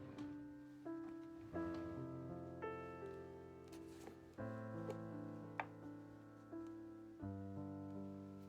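Soft, slow background piano music, gentle chords struck about once a second and left to ring out, with a few faint light clicks.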